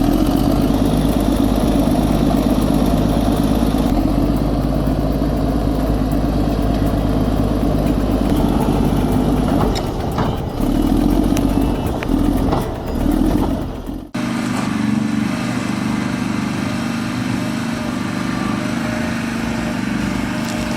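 Diesel engine of heavy construction machinery running steadily, with its level rising and falling a few times. About 14 s in it cuts abruptly to another machine's engine running steadily.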